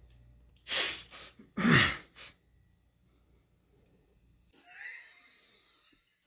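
A person sneezing: a short noisy burst, then a louder sneeze just under two seconds in whose voiced tail falls in pitch. A fainter hiss follows near the end.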